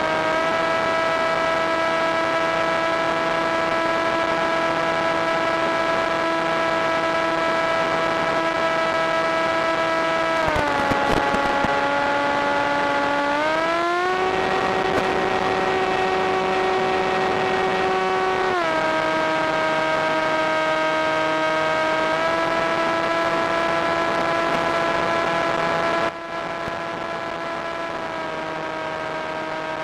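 RC airplane's motor and propeller heard from the onboard camera, a steady pitched drone that rises and falls with the throttle. The pitch sags about a third of the way in, climbs higher a few seconds later, settles back down past the middle, and the sound drops abruptly in loudness near the end.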